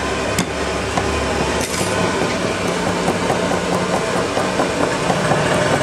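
Cleaver chopping garlic cloves on a wooden chopping board: rapid knocks of the blade on the wood, several a second, with two sharper strikes near the start. A steady background noise runs underneath.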